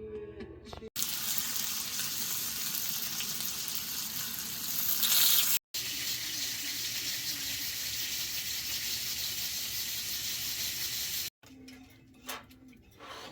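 A steady, even hiss in two stretches, each cut off abruptly, followed by a few quiet clicks.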